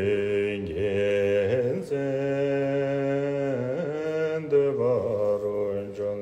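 A man's voice chanting a Tibetan Buddhist prayer in slow, drawn-out melodic phrases, each note held long and moving in small steps of pitch, with short breaths between phrases.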